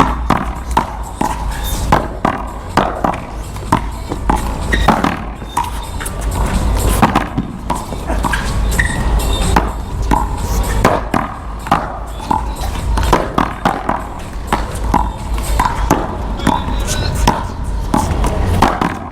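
A one-wall paddleball rally: paddles strike a rubber ball again and again, and it hits the wall and court, in sharp, irregular smacks roughly every half second to a second. A steady low rumble runs underneath.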